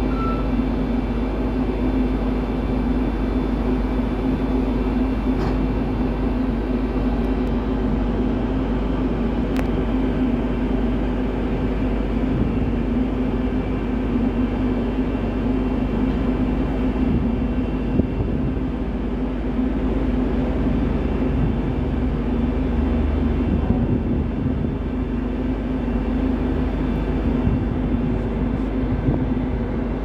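Steady drone of a moored ferry's machinery, a low even hum with a strong steady tone that does not change.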